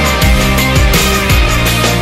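Loud backing music with drums and a bass line, no singing.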